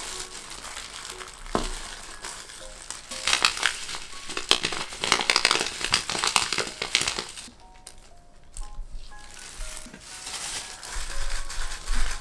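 Thin disposable plastic gloves crinkling as hands crush and squeeze tofu with grated carrot in a wooden bowl. The crackling is densest in the middle, eases off briefly, then picks up again near the end.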